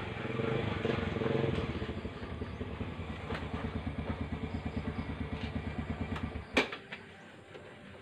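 Yamaha motorcycle pulling in and idling with an even, rapid putter. Its engine cuts off about six and a half seconds in, followed at once by a single sharp clack.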